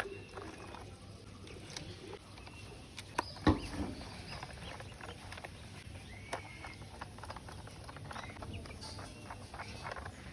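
Small screws being driven one after another into a plastic toy bus body: faint clicks, scrapes and squeaks of the plastic parts, with one louder knock a little over three seconds in.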